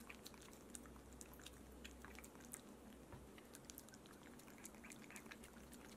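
Black Mame Shiba puppy licking a paste treat from a squeeze tube: faint, irregular wet licking clicks and smacks.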